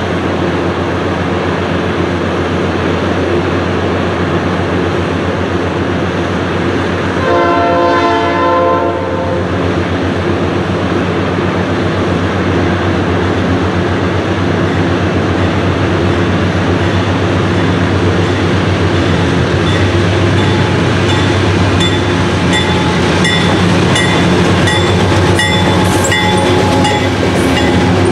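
Diesel freight locomotive running with a steady low engine drone, sounding one horn blast of about two seconds roughly seven seconds in. Over the last several seconds a rapid run of short, high repeated ringing notes joins in.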